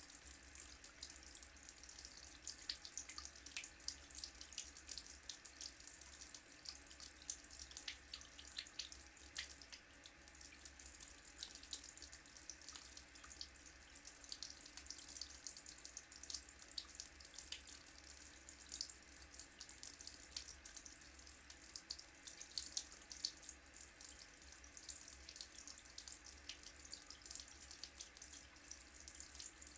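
Water running steadily from a wash-hand basin tap into the sink with the plug out, splashing and draining freely, with a continuous hiss and fine crackle of splashes.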